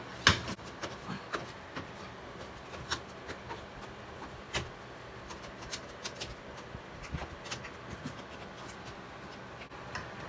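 Scattered light clicks and soft rubbing from hands working a front-load washer's rubber door gasket into the groove of its front panel, with one sharper knock just after the start.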